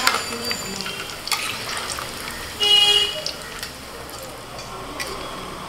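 Besan-battered chops of mutton liver and fat deep-frying in a karahi of hot oil: a steady bubbling sizzle with small crackles. About two and a half seconds in, a loud pitched toot of about half a second cuts across it.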